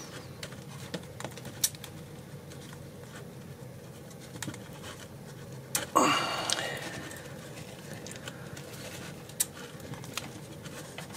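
Faint, scattered clicks of a small hand screwdriver working a tight screw on an RC truck's suspension. About six seconds in comes one short pitched sound that rises, then holds briefly.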